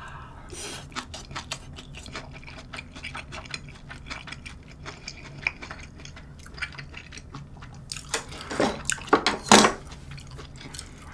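Close-up wet chewing and slurping of creamy spaghetti, full of small rapid mouth clicks and smacks. About eight seconds in come a few louder scrapes and clinks of cutlery in a dish.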